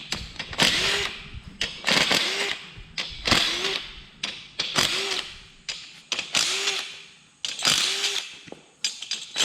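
A power tool's motor run in short trigger pulls, each burst rising and then falling in pitch, repeated about every second and a quarter while nuts are being taken off.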